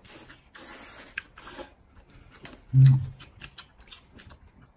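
A person slurping and chewing braised wheat noodles (huimian) in short noisy slurps. A short low hummed "mm" comes a little past the middle and is the loudest sound.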